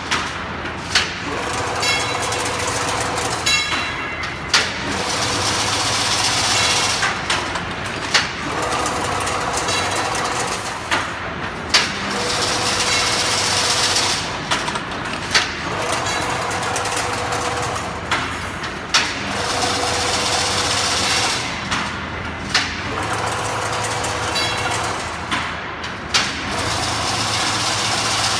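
Fully automatic chain link fence weaving machine running through its cycle about every three and a half seconds. Each cycle has a sharp clack and a stretch of steady hum over continuous mechanical clatter.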